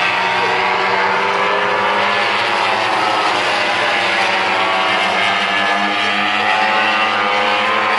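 Racing motorcycle engines running at high revs along the track, several engine notes overlapping and gliding slightly up and down in pitch.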